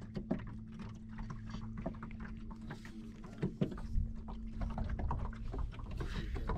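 Light clicks and knocks of a spinning reel and rod being handled in an aluminium jon boat, over a steady low hum that fades out about five and a half seconds in.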